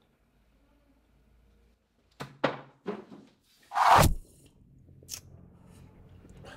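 Loud, exaggerated slurping of tea from a china cup. A few short, sharp sounds come about two seconds in, then one long, loud slurp about four seconds in.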